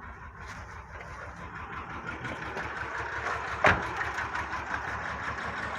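Nissan VQ35 3.5-litre V6 idling rough on only three cylinders, 2, 4 and 6. Cylinders 1, 3 and 5 are disabled on purpose, so they misfire, and it is a cold start. A single sharp click stands out about two-thirds of the way in.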